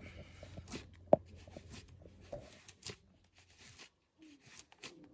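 Knife blade scraping a stick of fatwood into fine dust: short, irregular scratchy strokes with one sharp click about a second in.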